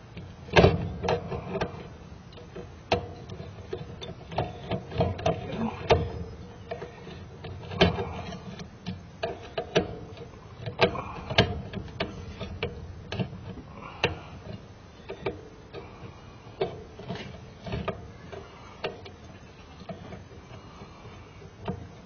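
A screwdriver working a mounting screw on a contactor inside a sheet-metal electrical box, with irregular clicks, scrapes and knocks of the metal tool against the screw and box. The loudest knock comes just after the start.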